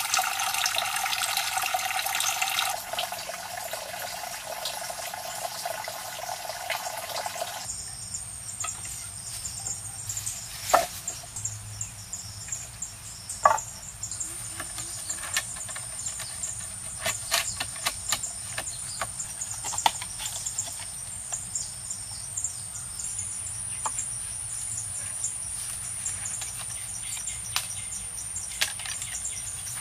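Water splashing into a small pond from a thin falling stream, then a steady high insect drone with scattered knocks and clicks of wooden poles being handled and laid down, two of them louder, about 11 and 13 seconds in.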